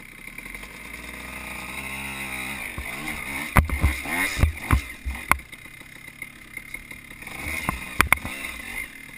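Dirt bike engine revving up and down while riding a rough trail, with several sharp knocks about halfway through and another pair near the end.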